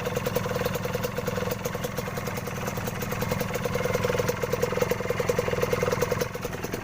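Kawasaki KMX125's two-stroke single-cylinder engine idling steadily, with a rapid, even putter.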